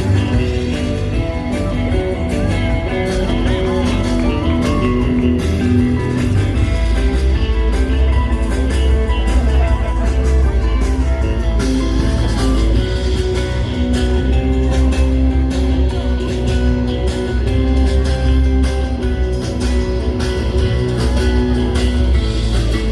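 Guitar-led music with a steady beat; a heavier bass part comes in about six seconds in.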